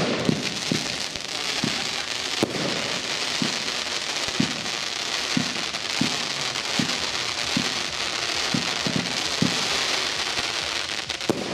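Firework battery firing: a low launch thump about once a second, with the shots coming a little faster near the end, over a continuous crackling hiss from the burning tails and effects.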